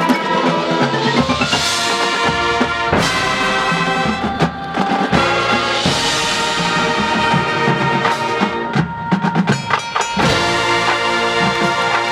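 High school marching band playing its field show: full sustained chords from the winds with percussion, and a quick run of sharp percussion hits about nine seconds in.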